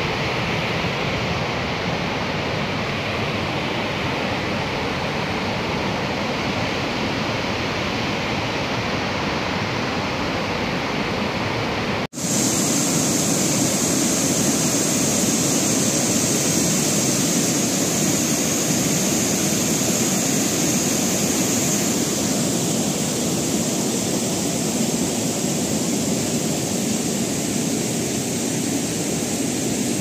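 Floodwater from an overflowing lake rushing steadily. About twelve seconds in it cuts to water pouring over the lake's overflow weir, a steady rush with a stronger high hiss.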